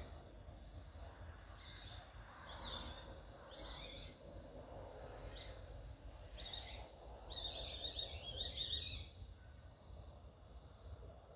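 Indian palm civets (common palm civets) squeaking while mating: a string of short, high, bird-like squeaks, one every second or so, then a faster run of squeaks near the end.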